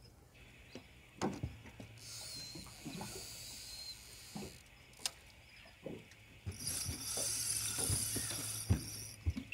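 Fishing reel's drag buzzing as a hooked fish pulls line off, in two runs of a few seconds each, the second one starting about two-thirds of the way in. Sharp knocks against the aluminium boat sound in between.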